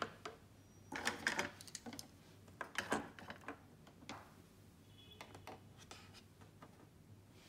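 Plastic Pilot Parallel calligraphy pens, a cap and a plastic pipette clicking and clattering as they are set down and arranged on a tabletop, in short clusters of taps that are loudest in the first three seconds and thin out toward the end.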